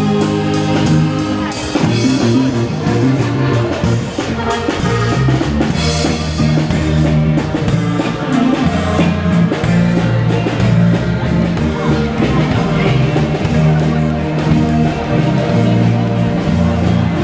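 Music with a steady drum beat under sustained instrument notes that change every second or so.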